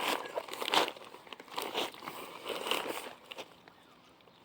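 Old, dried-out slime being squeezed and handled, giving irregular crackling and crinkling noises that die away about three seconds in; the slime has hardened with age.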